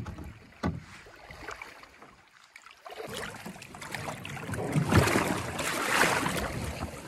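Water splashing and sloshing around a canoe being waded up a shallow, rocky stream, with two sharp knocks in the first second. The splashing builds from about three seconds in.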